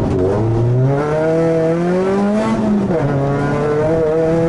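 Renault Clio Sport rally car's engine, heard from inside the cabin, revving up under hard acceleration. About three seconds in the revs drop sharply, as at an upshift, and then climb again.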